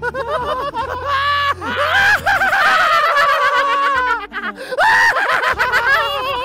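Two men laughing loudly and hysterically, in high, wavering shrieks.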